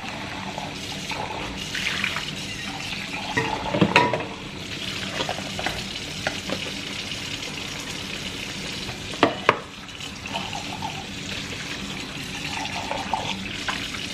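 A steady sizzling hiss with a few sharp clinks and knocks of kitchen things, the loudest a pair of knocks about two-thirds of the way through.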